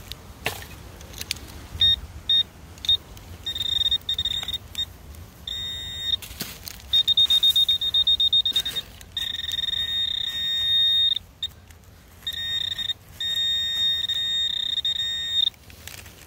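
Metal detector signal: a high-pitched electronic tone sounding in short beeps and longer steady stretches, pulsing quickly for a couple of seconds near the middle, as it sounds off over a buried target read as a nickel. A few knocks break in between the tones.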